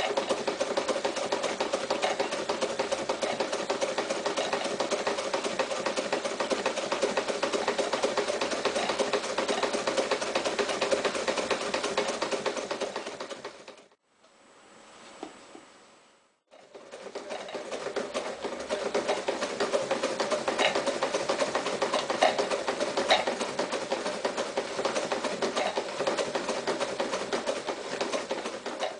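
Mitsubishi MAZ4 electric sewing machine running at a steady stitching speed, slowing to a stop about halfway through, then starting up again a couple of seconds later and running steadily until it stops near the end.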